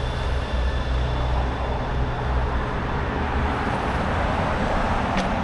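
City street traffic: a steady low engine rumble with road noise that grows louder from about two seconds in, and a short click near the end.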